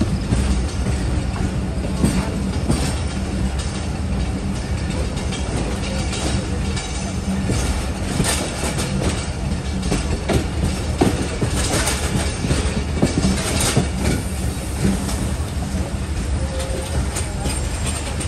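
Passenger train running along the track: a steady rumble with irregular clicks and knocks of the wheels passing over rail joints.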